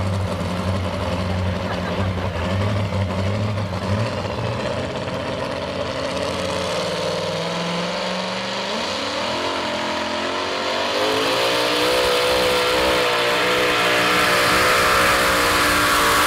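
Supercharged engine of a modified two-wheel-drive pulling truck idling with a low steady note, then revving up about eight seconds in and running at high revs, louder, as the truck pulls away with the sled.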